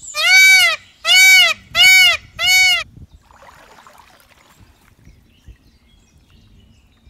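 Four loud animal calls in quick succession, each drawn out for about half a second and rising then falling in pitch.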